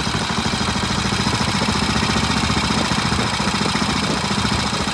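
Vintage British single-cylinder motorcycle engine idling steadily, with an even beat.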